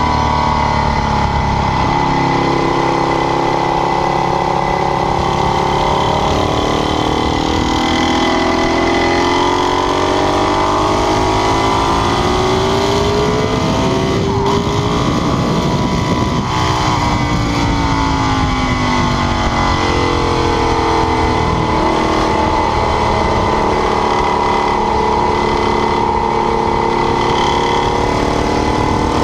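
Ducati 848's V-twin engine under hard running, its pitch climbing and falling again and again as the revs rise and drop through the gears. Around the middle the revs fall away deeply, then climb again.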